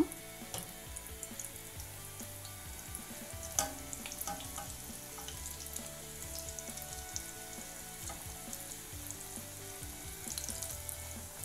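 Raw plantain balls deep-frying in hot oil: a steady sizzle with fine crackling as they fry, and a single sharp click about three and a half seconds in.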